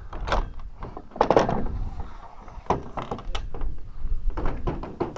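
Sprinkler irrigation pipes and their fittings being handled, giving a series of irregular knocks and clanks, the loudest about a second in, over a low background rumble.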